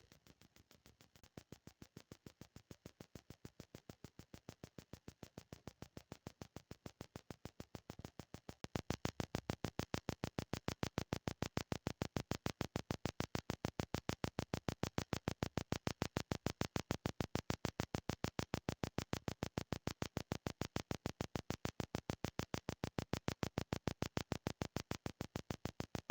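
Water-damaged phone speaker giving out an even, rapid clicking, about five or six clicks a second. It steps louder about a second in and again about eight seconds in.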